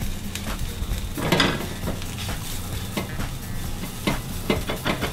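A utensil stirring and scraping a flour-and-margarine roux as it sizzles in a hot pan, browning lightly, with irregular clicks against the pan.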